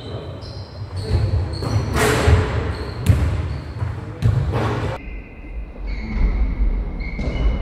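Basketballs bouncing on a sports-hall floor during a game, a few loud, separate bounces echoing in the large hall.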